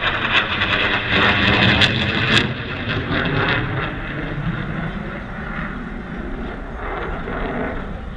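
Aircraft passing overhead: a loud roar that peaks in the first two or three seconds, then fades to a steady, lower rumble.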